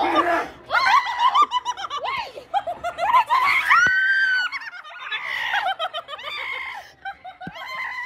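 A group of young people laughing and shrieking in fright, with one long high scream about four seconds in.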